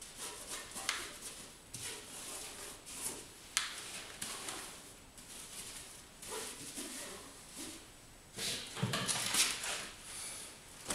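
Tire lube being applied by hand to a car tire: a string of irregular rubbing, swishing strokes, with louder rubbing and a dull knock about nine seconds in.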